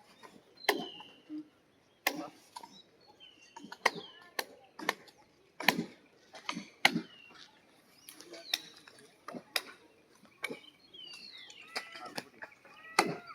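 Machete blows chopping into silver oak branches: sharp strikes at irregular intervals, roughly one a second, with birds chirping between them.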